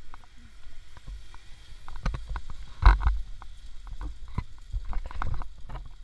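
Handling noise from a carried camera while walking: irregular knocks and clicks over a low rumble, the loudest knock about three seconds in.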